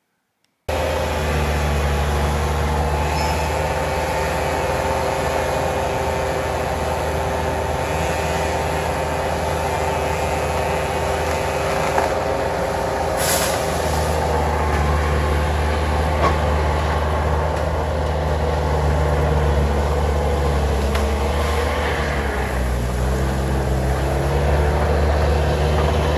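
Diesel engine of heavy earthmoving equipment running steadily and loudly while clearing trees, with a brief sharp noise about halfway through.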